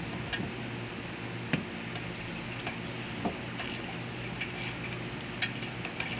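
Scattered sharp metallic clicks and clinks of a wrench being fitted onto and worked on the brake caliper bracket bolts, at irregular intervals, over a steady low hum.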